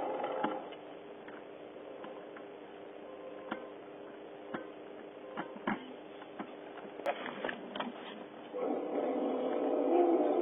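Electric motor and gear drivetrain whine of RC scale off-road trucks: a whine that stops about half a second in, a quieter stretch with a faint steady hum and scattered clicks, then a louder whine starting again near the end as the 6x6 KrAZ 255 truck drives off.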